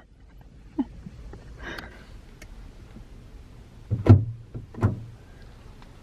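Two dull thumps a little under a second apart, over a faint low rumble.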